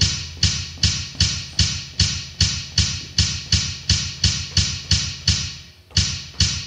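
Steady percussive pulse from the electronic playback track, short knocks with a low thump, a little under three a second, with a brief break near the end.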